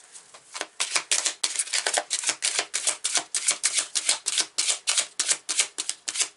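A deck of tarot cards being shuffled by hand: a quick, even run of sharp card slaps, about five a second, starting after about half a second.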